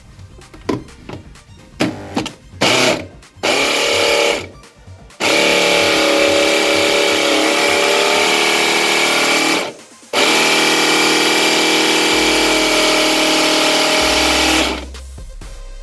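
Electric blender motor chopping a plastic water bottle: a few short bursts, then a long steady whining run, a brief stop at about ten seconds, and a second long run that cuts off near the end.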